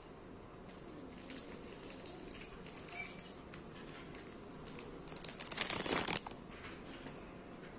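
Light clicks and rustles of a pencil case and pens being handled. About five seconds in comes a burst of crinkling plastic, about a second long and the loudest sound, as a plastic packet of pencils is handled.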